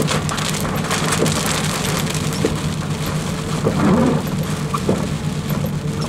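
Wind-driven rain with big drops striking a truck's roof and windshield: a steady wash of rain with many separate drop impacts, over a low steady hum.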